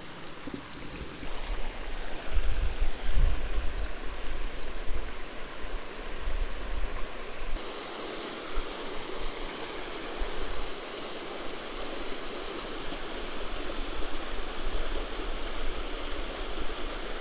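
Creek water rushing and splashing over a small rocky cascade into a pool, with low rumbles against the microphone, loudest about two to four seconds in.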